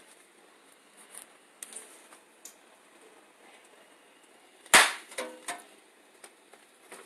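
A single loud, sharp knock about five seconds in, followed by a couple of smaller knocks and a brief ringing, amid faint scattered clicks of handling.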